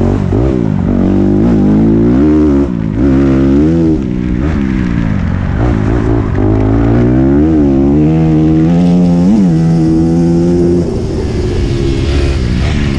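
Off-road rally motorcycle engine heard close up from the bike, revving up and down over and over as the rider accelerates, shifts and backs off on a dirt track. The pitch holds steady for a few seconds past the middle, then keeps rising and falling.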